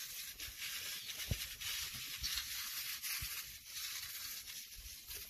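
Backpack knapsack sprayer's nozzle hissing out a fine spray of treatment onto pepper plants, a steady high hiss with a few soft low thumps.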